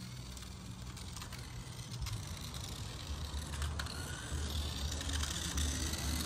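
Toy remote-control car running in short bursts: a low motor-and-wheel rumble that starts and stops repeatedly, with a few light clicks.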